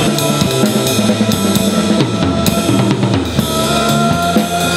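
Band music: a drum kit keeping a steady beat over a bass line, with held higher notes coming in about three and a half seconds in.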